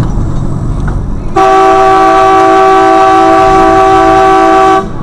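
A large vehicle's multi-tone horn sounds in one long, steady blast of about three and a half seconds. It starts about a second and a half in and stops abruptly, over engine and road rumble, as a warning to a car close in front.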